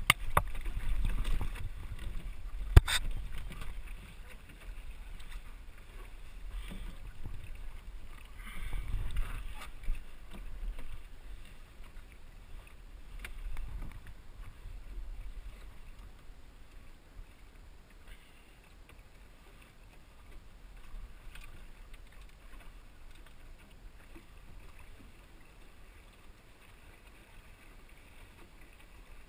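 Water sloshing against the hull of a small sailing dinghy under way, with wind rumbling on the microphone, louder through the first ten seconds and then dying down. A sharp knock about three seconds in.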